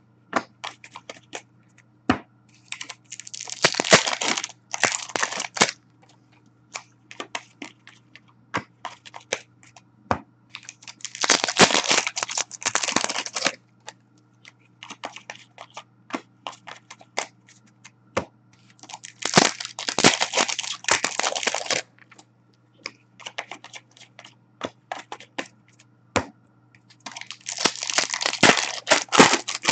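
Hockey card packs being torn open, the wrappers crinkling and crumpling in bursts about every eight seconds. Between the bursts come light clicks of cards being flipped and set down one by one on a glass counter.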